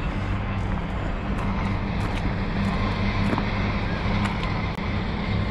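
Steady low drone of a running engine, an even hum under a wash of noise, with a few faint clicks.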